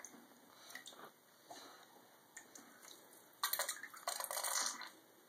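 Water splashing and dripping in a bathtub, with a louder pour of water from a toy plastic teapot into the bathwater from about three and a half seconds in, lasting about a second.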